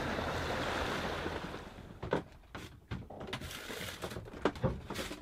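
Steady rush of sea and wind around a sailboat under way. After about two seconds it gives way to a quieter stretch inside the cabin, with scattered short knocks and clicks.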